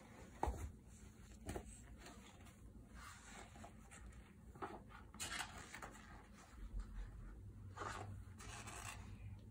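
Pages of a glossy children's picture book being handled and turned. There are a few light taps and flicks in the first couple of seconds, then several soft paper rustles and swishes.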